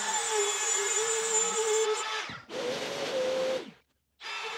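Cordless compact router running at high speed while template-routing an opening in a plastic table-saw top, its whine wobbling in pitch as the cut loads it. A little past halfway the sound changes abruptly to a steadier whine with more hiss for about a second, then breaks off into a brief silence before the routing resumes near the end.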